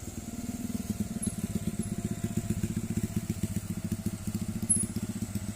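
Diesel truck engine working hard at low revs, a rapid even throb, as the truck climbs a steep, slippery grade.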